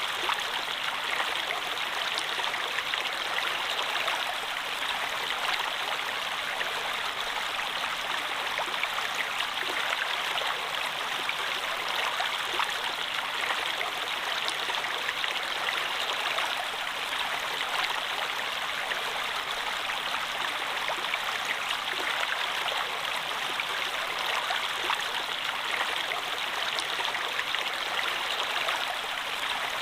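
Water flowing steadily, an even rushing with small faint splashes scattered through it.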